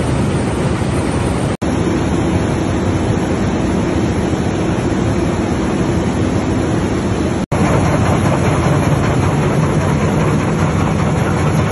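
Machinery of a needle-punching nonwoven line running: a steady, loud mechanical rumble and clatter from the cross-lapper and web conveyor. It drops out for an instant twice, about 1.5 s and 7.5 s in. After the second break a Dilo needle loom is running, a little louder.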